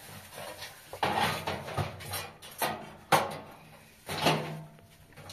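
Metal tongs clanking and scraping against a sheet-metal stove's firebox and a metal tray as hot coals are lifted out: a few sharp metallic knocks with brief ringing, the loudest about three seconds in.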